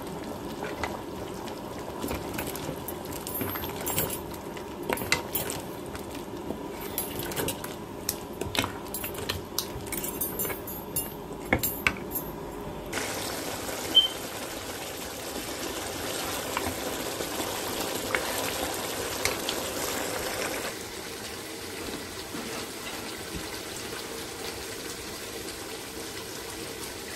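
A spoon stirring a pot of simmering chicken and potato curry, knocking and scraping against the pot many times during the first half. After that the knocks mostly stop and a steadier bubbling hiss of the simmering pot is left.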